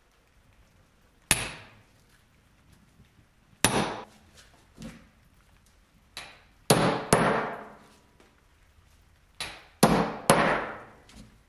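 Hammer blows on a small cylindrical metal air-pistol part held upright on a workbench board: about nine sharp metallic clangs, each ringing briefly, in uneven groups of one to three.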